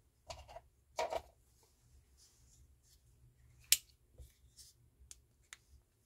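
Small plastic clicks from handling a Land Rover flip-key remote, with one sharp snap a little over halfway through as the key blade is folded shut and latches into the shell.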